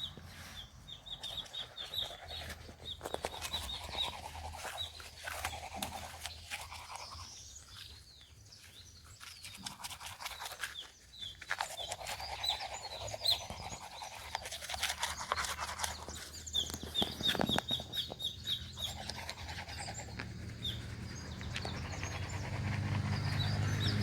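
Birds calling in rows of quick, high repeated chirps, over scratchy rustling and scattered clicks close to the microphone.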